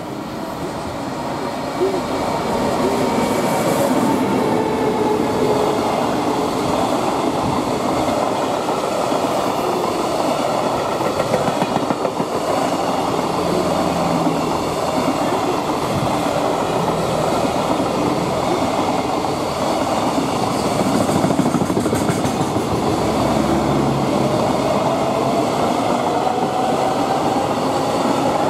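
A freight train hauled by an EF210 electric locomotive passes close by, then a long string of container flatcars rolls past with a steady rumble and clickety-clack of wheels over rail joints. It grows louder over the first couple of seconds as the locomotive arrives, and a faint rising whine comes in near the end.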